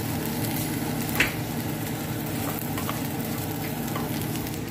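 Rice, onion and garlic sizzling steadily in olive oil in a stainless steel pot as they toast, stirred with a wooden spoon, with one sharp knock a little over a second in.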